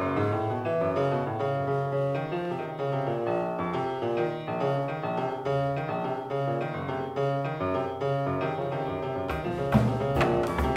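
Grand piano playing a busy jazz passage of many quick notes over low bass notes. Near the end, sharp drum and cymbal strokes come in.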